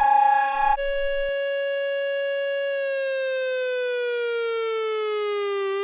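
Electronic siren tone with many overtones. After a falling sweep ends under a second in, a new steady tone starts, glides slowly down in pitch and begins to rise again near the end.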